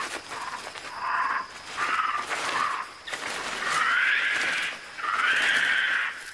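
Black capuchin monkey giving a series of about five rasping cries, each half a second to over a second long, the last two longest and loudest, as it is attacked by Azteca ants.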